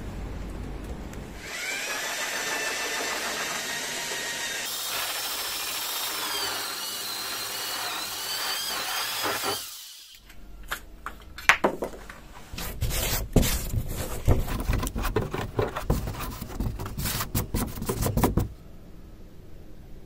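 Cordless drill spinning a hole saw: a steady motor whine for about eight seconds, its pitch wavering as the saw loads up. After a short break the hole saw cuts through the wooden wall, a rough grinding with irregular sharp knocks and chatter, stopping near the end.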